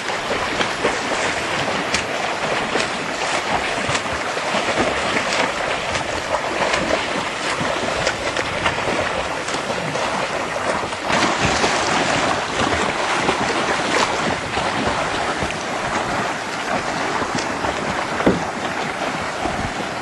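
Wind buffeting the microphone over choppy open sea, with water splashing and lapping steadily; the sharper splashes come from swimmers' arm strokes.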